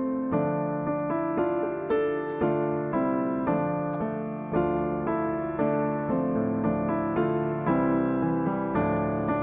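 Soft background piano music: notes struck at an even, gentle pace, each decaying before the next, with chords held underneath.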